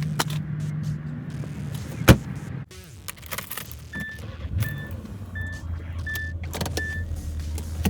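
A car door shuts with one sharp thud, then the car's warning chime beeps five times, evenly spaced, over the low steady hum of the car.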